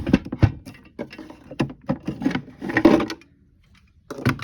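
Irregular knocks and clunks of a vintage sewing machine being worked into place in a wooden sewing cabinet, metal against wood, with a short pause about three seconds in before a few more knocks.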